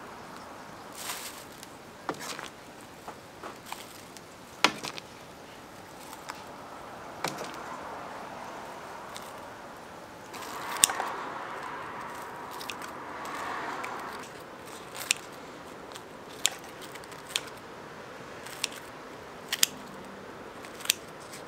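Sharp clicks and knocks of kitchen utensils handling crispy fried food, scattered irregularly, with a few seconds of rustling noise near the middle.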